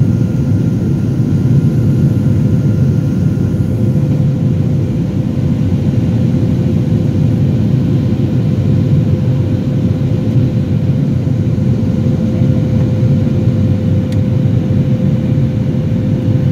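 Boeing 737 cabin noise during the climb after takeoff: the jet engines and airflow make a loud, steady rumble with a constant hum through it. A fainter higher tone fades out about four seconds in.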